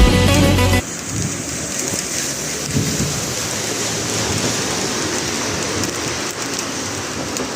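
Steady rain falling, an even hiss of drops. A music track cuts off abruptly just under a second in.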